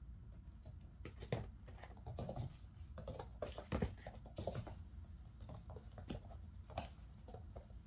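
A kitten's paws scampering and skidding on a wooden floor and foam mats: an irregular run of soft taps and scuffs, starting about a second in.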